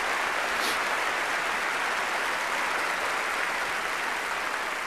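Large audience applauding, a dense and even sound of many hands clapping.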